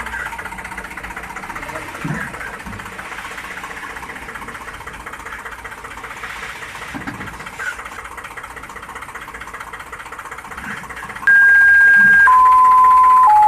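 A small motor buzzing and rattling steadily, with a few soft knocks. About eleven seconds in, loud electronic beeps take over, stepping down in pitch one after another.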